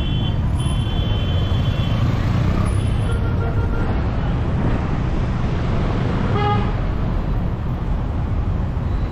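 Busy city street traffic: a steady low rumble of engines and road noise, with vehicle horns honking, a long honk about half a second in, a short one around three seconds and a differently pitched one near six and a half seconds.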